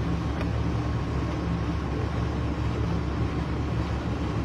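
Old stationary tubewell engine with a large flywheel running steadily, a constant low hum with one faint click about half a second in.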